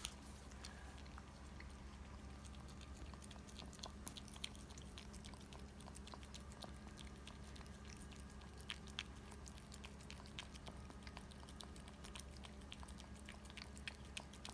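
A small Pomeranian–Chihuahua mix dog gnawing and chewing a stick treat held in a person's fingers: faint, irregular clicks of teeth on the chew, a few of them sharper.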